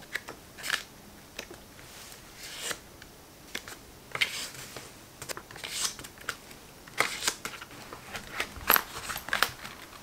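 Paper pages of a leather-covered journal notebook being turned and handled: soft rustles and sweeps every second or two, with a cluster of sharper clicks and taps in the last few seconds as the notebook is closed.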